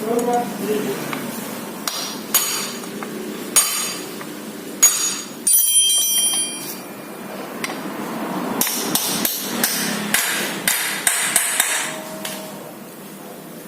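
Hammer tapping on metal, tapping parts of a Honda Vario's water pump into place: single sharp knocks, one around five and a half seconds in that rings for about a second, then a quicker run of taps from about halfway through.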